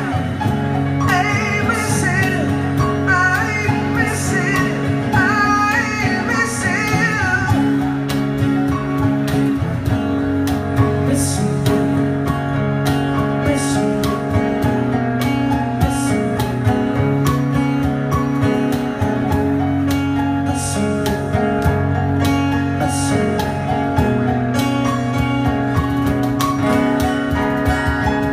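Live acoustic band playing a slow song on keyboard, acoustic guitar and cajón. A voice sings wavering runs over the band for the first several seconds, then the instruments carry on alone.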